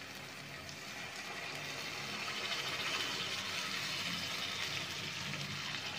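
Dal cooking water (yelvani) poured from a steel vessel into a kadhai of frying masala: a steady splashing pour that builds over the first couple of seconds.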